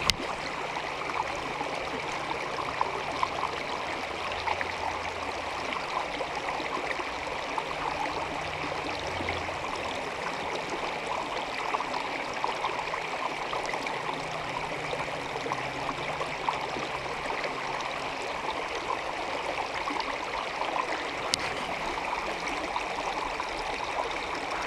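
Mountain trout stream running over rocks, a steady rush and babble of water.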